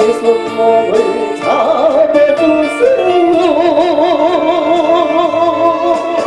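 A man singing a Korean gukak-style gospel song over backing music. About halfway in he settles on one long held note with a wide, even vibrato.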